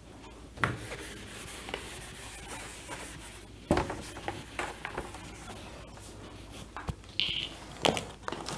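Whiteboard duster rubbing across a whiteboard as the board is wiped clean, with a few sharp knocks.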